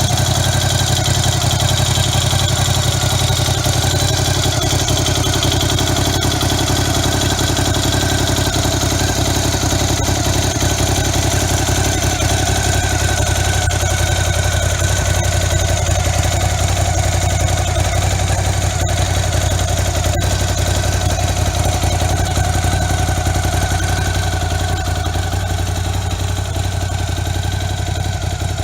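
Ducati Scrambler 1100 Sport's air-cooled L-twin engine idling steadily, without revving.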